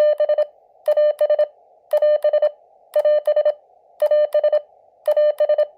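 Elecraft KX2 transceiver's speaker playing a received Morse-code (CW) signal: a steady tone of about 600 Hz keyed in groups of three beeps, one longer and two shorter, repeating about once a second over a narrow band of receiver hiss.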